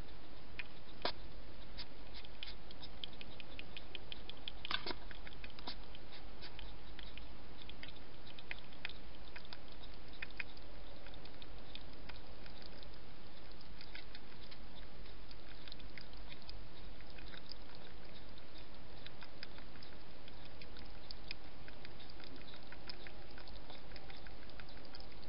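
A wild European hedgehog feeding at a dish close to the microphone: a run of small sharp clicks and smacks, thickest in the first few seconds, over a steady low hum and hiss.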